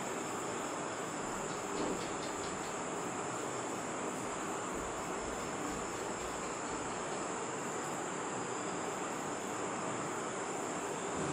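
A steady, high-pitched insect chorus, a continuous shrill hum from many insects.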